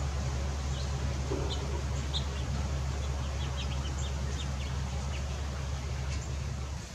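Small songbirds giving short, high chirps, a dozen or so bunched together in the middle, over a steady low hum that drops away just before the end.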